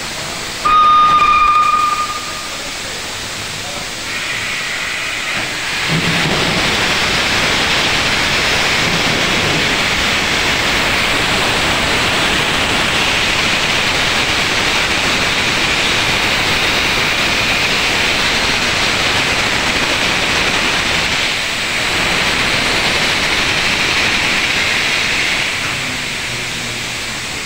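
Steam locomotive gives one short whistle blast, then steam hisses loudly from the cylinder drain cocks for about twenty seconds, dipping briefly and easing off near the end.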